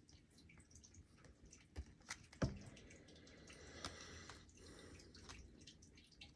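Near silence with a few faint, sharp clicks, the strongest about two and a half seconds in.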